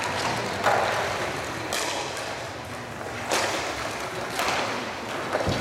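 Roller hockey play: about five sharp knocks of sticks on the puck and the puck against the rink boards, roughly a second apart, over a steady background din.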